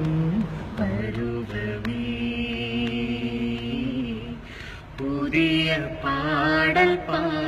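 A voice singing a slow melody in long held, wavering notes. It fades briefly about four and a half seconds in, then returns louder.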